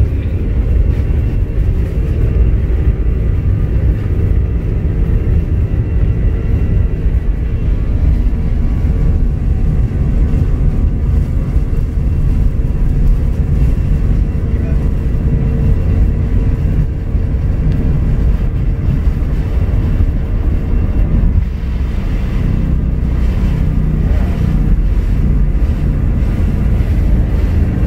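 Cabin noise of an Airbus A321 jetliner taxiing toward takeoff: a loud, steady low rumble of the jet engines and rolling wheels with a steady hum over it, the hum fading about three quarters of the way through.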